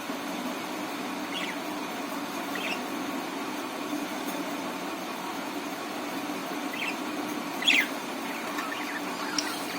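Budgerigars giving a few short, high chirps, the loudest about three-quarters of the way through, over a steady low hum.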